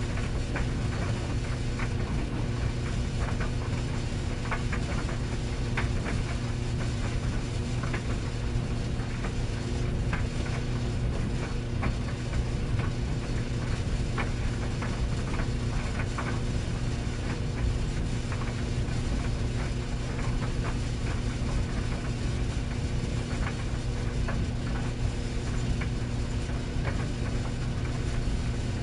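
Tumble dryer running: a steady hum with a constant low drone, overlaid by irregular light ticks and taps.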